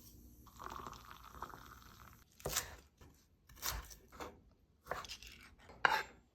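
A dog chewing a treat: a soft munching, then several separate crunches as it bites down.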